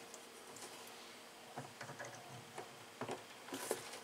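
Faint clicks and taps of plastic parts being handled as the selector knob is fitted back onto a Lorenzetti Jet Turbo electric shower's plastic cover, with a slightly louder cluster of clicks near the end.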